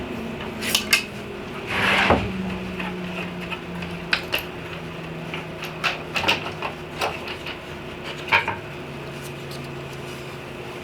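Table saw blade coasting down after being switched off, a faint hum slowly falling in pitch, while sharp clinks and knocks come from a dozen or so handling sounds as the jig and workpiece are moved.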